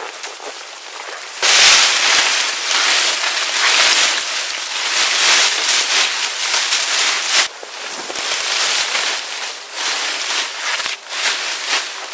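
Fire burning with loud, dense crackling and popping, starting suddenly about a second and a half in and cutting off abruptly at the end.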